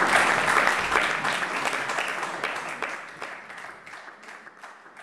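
Audience applause fading out, the dense clapping thinning into separate claps as it dies away.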